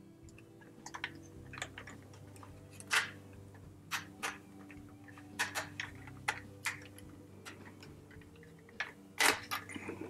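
A plastic battery pack being handled, positioned and pressed down onto a mounting platform: irregular plastic clicks and taps. The loudest come about three seconds in and near the end.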